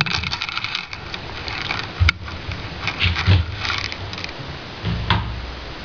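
Plastic clicks and scraping as the battery pack of an Acer TimelineX 1830TZ netbook is unlatched and slid out of its bay, with a sharp click about two seconds in and a few low knocks as the battery is handled on a wooden table.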